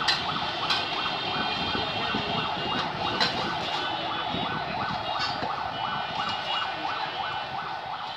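A siren-like electronic tone pulsing steadily about three times a second over a busy background, with a few sharp clinks.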